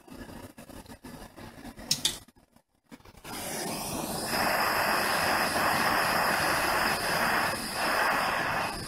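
A sharp click about two seconds in, then a gas soldering torch's flame coming on and burning with a steady hiss while it heats a copper pipe joint.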